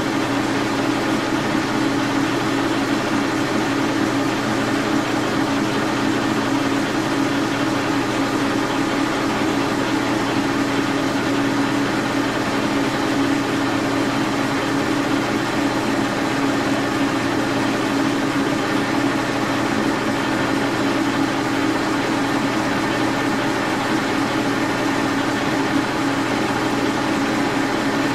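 Brown & Sharpe horizontal milling machine running with a steady hum, its spindle turning a small drill that is being fed into an aluminum knob to drill pin-spanner holes.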